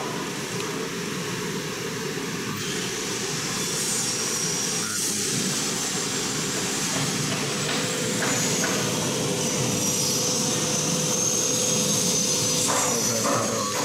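Steady drone of running machinery with a constant hum and a thin high whine that drifts in pitch; a few light clicks near the end.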